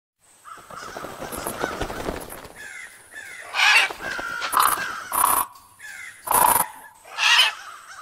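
Crows cawing: softer calls at first, then about five loud caws roughly a second apart. These are agitated crows mobbing the phone that is recording them.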